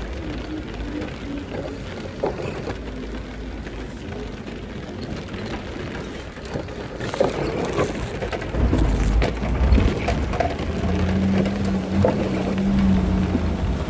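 Storm wind gusting and buffeting the microphone, with rain falling; the gusts grow louder about two-thirds of the way in. A steady low hum sounds near the end.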